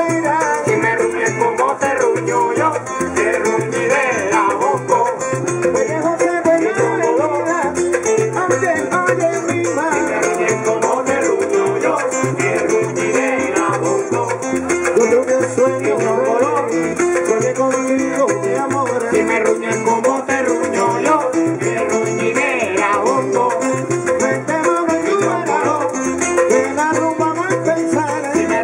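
A live band playing upbeat Latin-style music: acoustic guitar strumming, an upright bass line and percussion, with a man singing into the microphone.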